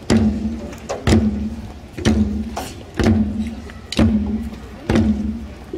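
West African drum ensemble of djembes and dunun playing a slow, steady pulse: a low, ringing drum stroke about once a second, with lighter strokes in between.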